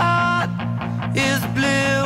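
Rock music with a singer holding long notes over a steady backing.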